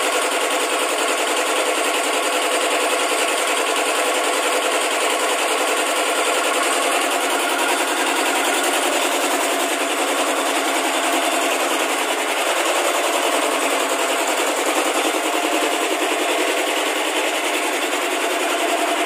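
Machinery running steadily with a fast, even mechanical rattle.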